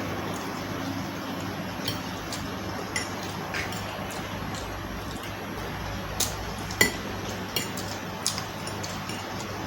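A person eating on an ASMR microphone: scattered sharp clicks and clinks, like bites and utensils against a plate, about eight in all, the loudest about seven seconds in, over a steady low hum and hiss.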